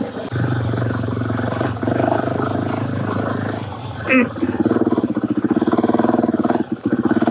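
Suzuki DRZ400's single-cylinder four-stroke engine running under way on a sandy trail. There is a short sharp noise about four seconds in, after which the revs rise and the engine works harder, with a brief dip in the engine note near the end.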